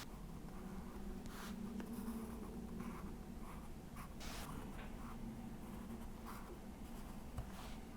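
Pencil sketching on folded copier paper, drawn in separate short scratchy strokes with pauses between them. A steady low hum runs underneath.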